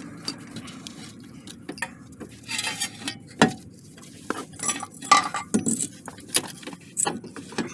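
Scattered metallic clinks and knocks of tools and steel parts being handled while a CV axle is worked free, with several sharp ringing taps in the second half.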